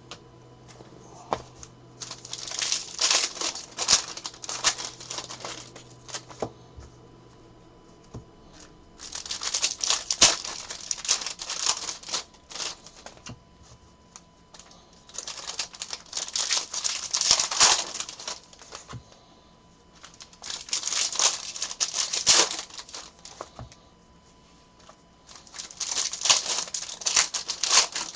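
Plastic packaging crinkling and crackling as it is handled, in five bursts of a few seconds each with short pauses between.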